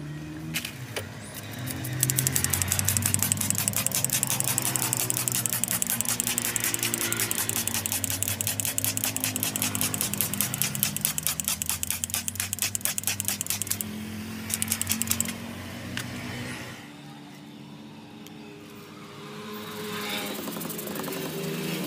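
Stiff brush scrubbing a wet fabric car door panel in fast back-and-forth strokes, a rapid even scratching that stops about two-thirds of the way through, comes back for a moment, then fades, over background music.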